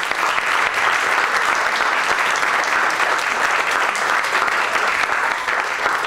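Audience and people on stage applauding steadily: many hands clapping at once.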